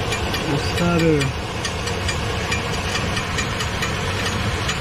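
Chevrolet Silverado engine idling with a rapid, regular metal-to-metal ticking from underneath, which the mechanic takes for the flywheel hitting the starter.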